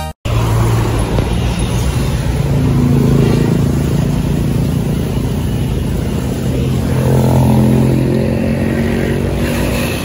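Coach bus engine running as the bus drives past in traffic, with motorcycles going by; the steady engine hum swells about three seconds in and again around seven to eight seconds in.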